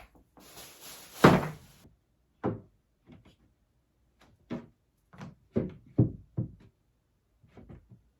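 Bottles and product containers set down on a shelf: a string of separate knocks and clunks, the loudest about a second in, with a brief hiss around it.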